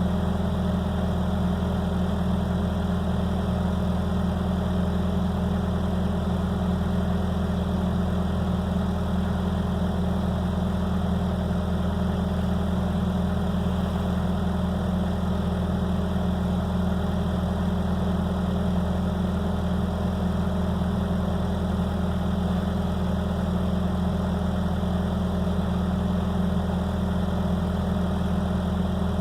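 Skid steer engine running steadily at a constant speed, with an even low hum and no revving or changes.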